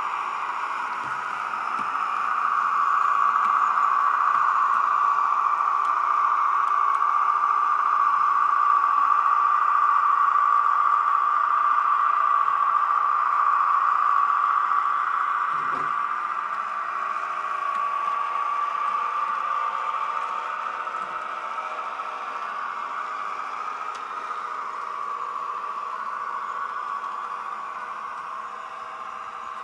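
H0-scale model tram running on its layout track, with its small drive and Benedini sound module giving a steady drone that swells after about two seconds and fades away in the second half. A brief knock about halfway through.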